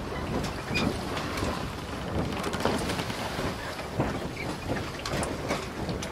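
Water sound effect under an underwater logo animation: a steady wash of water noise scattered with many small pops and drips.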